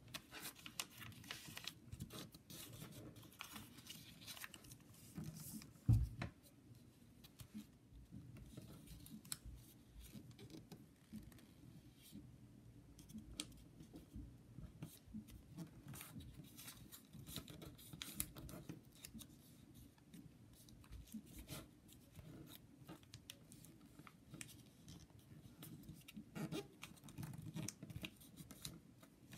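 Origami paper being folded and creased by hand, with soft rustles, crinkles and small scrapes of paper and fingertips, and one louder thump about six seconds in.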